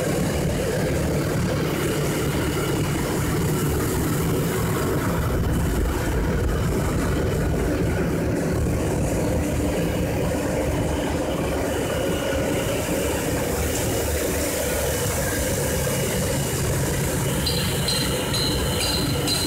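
PE plastic recycling machine running: a steady drone of its electric motors and machinery. Near the end a rhythmic high clinking sets in, a couple of times a second.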